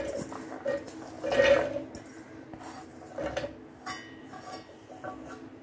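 Diced carrot pieces poured from a steel bowl into a stainless steel mixer-grinder jar, clattering in a few short bursts, the loudest about a second and a half in, over a faint steady hum.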